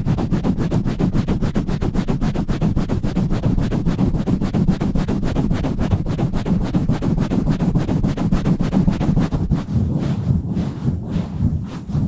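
ASMR mic pumping: hands cupped and rapidly pumped and rubbed over a microphone, making a fast, deep, muffled beat of about ten strokes a second. Near the end the strokes come less evenly and sound duller.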